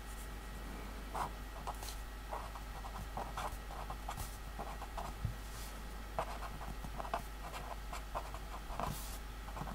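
Pen writing on paper: a faint run of short, irregular scratches as letters are written.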